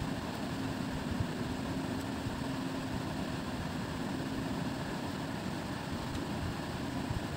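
A steady mechanical hum, like a motor running, with a faint held low tone.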